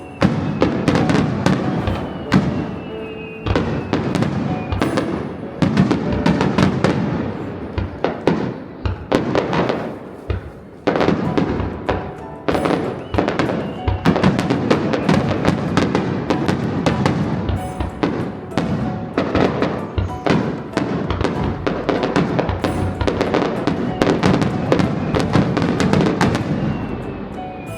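Dense fireworks barrage: rapid, overlapping booms and crackling bursts, several a second, with a faint whistle rising now and then.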